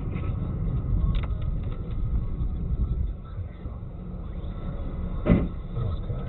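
Low, steady rumble of a car on the road, with a short sharp knock about a second in and a louder thump about five seconds in.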